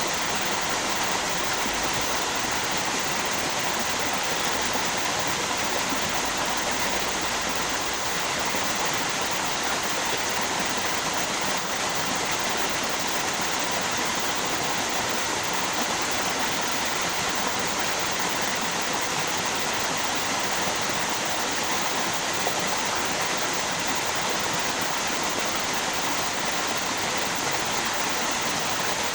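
Flowing water of a river or waterfall: a steady, unbroken rush.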